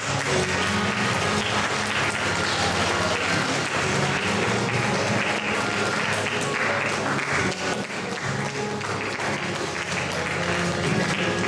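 Audience applauding steadily, with instrumental music playing beneath.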